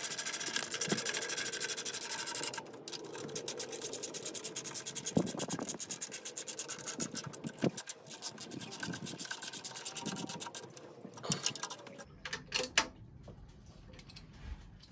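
Ratchet wrench clicking as it runs down and tightens the nuts holding the flame arrestor to the throttle body: a fast run of clicks at first, then shorter runs of clicks, and a few sharper clicks near the end.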